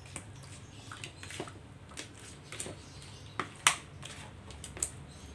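A spatula turning catfish pieces in blended spice marinade inside a plastic bowl: soft wet squishing with irregular light clicks and taps against the bowl, the sharpest knock a little past halfway.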